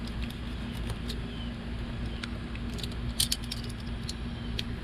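Scattered small metallic clicks and a brief clatter about three seconds in, over a steady low hum.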